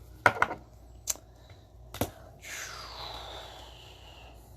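Trading cards being handled: a few sharp clicks and taps, then a hissy sliding sound of about two seconds that falls in pitch, like a card sliding against plastic.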